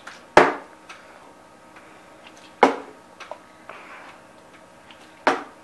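Plastic water bottle knocking on a wooden tabletop: three sharp knocks about two and a half seconds apart, with a few faint clicks between, as bottles are flipped onto the table and set down.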